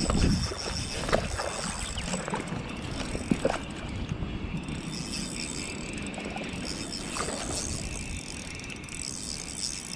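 Spinning fishing reel being cranked to bring in a hooked fish, the gears whirring with scattered clicks and knocks.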